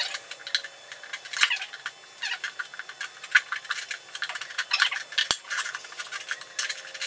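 Screwdriver prying a lawn tractor tire's bead over a steel rim: irregular metallic scrapes and clicks of the tool against the rim, with one sharp knock about five seconds in.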